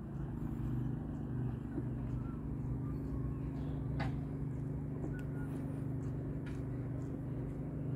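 A motor running steadily with a low, even hum that holds one pitch, with a few faint short chirps above it.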